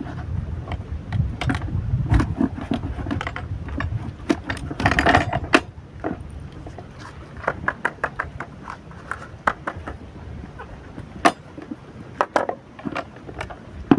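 Knocks and clicks of a plastic groundbait bucket and a bait riddle being handled and set down, with a short rustling scrape about five seconds in as the soaked bread is worked through the riddle.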